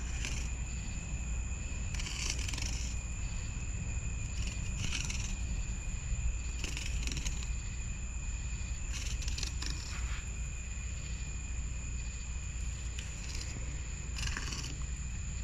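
Night insects such as crickets trilling steadily in two high tones, with short scratchy bursts every few seconds over a steady low hum.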